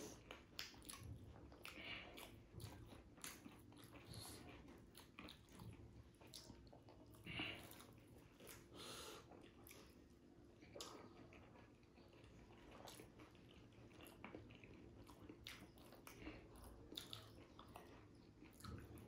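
Faint chewing and crunching of dahi puri (crisp fried puri shells filled with yogurt), with many small irregular clicks and crunches throughout.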